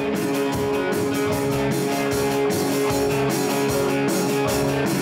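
Small rock band rehearsing: a drum kit keeping a steady beat of drum and cymbal hits under electric guitar chords.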